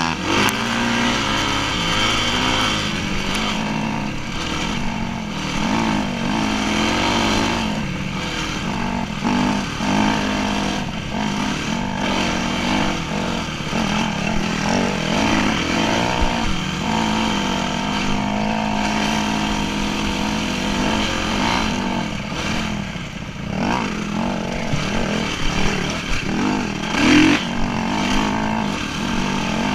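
Dirt bike engine running while riding, its revs rising and falling with the throttle.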